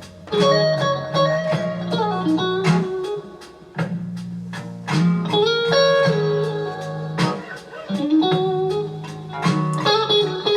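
Instrumental music led by guitar, with a steady beat: the song's outro after the vocals end.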